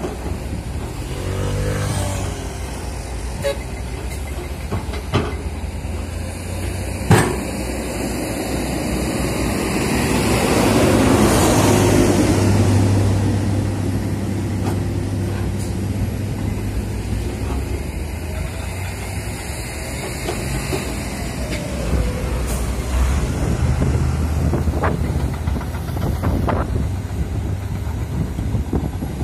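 Diesel engine of a Komatsu PC200 hydraulic excavator running while it digs, growing louder for a few seconds near the middle as it works. A few sharp clanks stand out, the loudest about seven seconds in.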